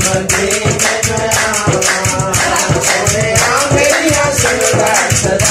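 A man singing a Punjabi devotional song with a wavering, drawn-out melody, accompanied by fast, steady rhythmic percussion from hands beating on a large round vessel.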